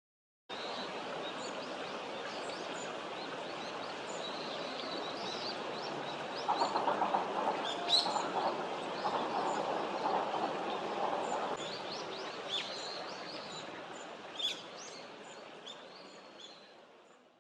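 Short, high hawfinch call notes scattered over a steady outdoor background hiss, with a few sharper ticks standing out. A lower, rapid rattling runs from about six to eleven and a half seconds in, and everything fades out near the end.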